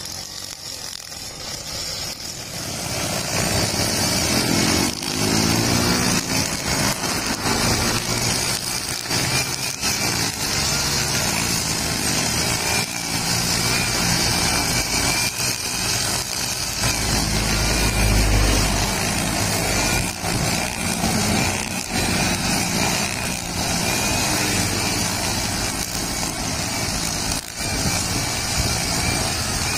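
Brush cutter engine picking up speed about three seconds in, then running at high revs as its spinning nylon line cuts grass and weeds. A passing car adds a low rumble about two thirds of the way through.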